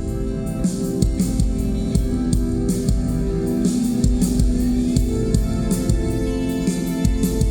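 A live rock band playing: strummed guitar chords held over a drum kit keeping a steady beat.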